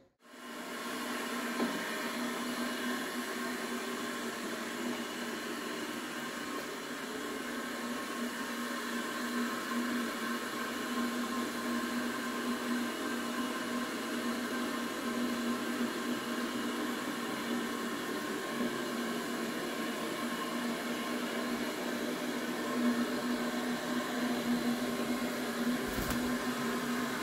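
Steady hum of a running electric appliance motor, with one strong low tone over an even whir. A brief soft knock comes near the end.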